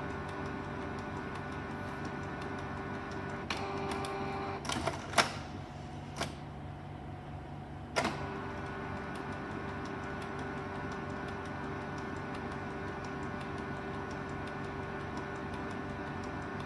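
Canon Pixma G2010 inkjet printer running a print-head cleaning cycle: a steady mechanical whir with faint ticking, broken between about four and eight seconds in by a handful of sharp clicks and clacks, the loudest about five seconds in.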